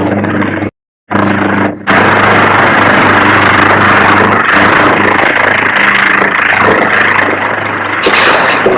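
Vocal mimicry of an engine, made with the mouth. A steady low hum breaks off for a moment about a second in. From about two seconds in a louder, rushing engine noise follows, and it changes near the end.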